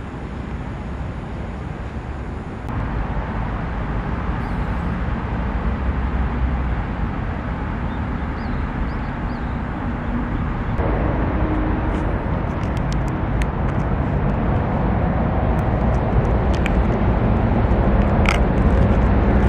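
Steady rushing noise of a small gas canister stove burning under a titanium mug, mixed with wind on the microphone. Over the last few seconds there is a crackle of short clicks as the plastic film lid is peeled off an instant rice bowl.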